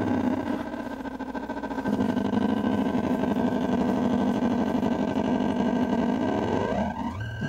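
Circuit-bent Fisher-Price Junior Asparagus Bedtime Buddy plush toy putting out a harsh, distorted electronic drone with a rapid stutter. Near the end it breaks into pitch sweeps gliding down and up.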